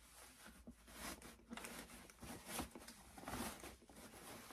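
Faint, irregular rustling and soft scuffs of a cloth dust bag as a Hermès Birkin 35 in Epsom leather is drawn out of it.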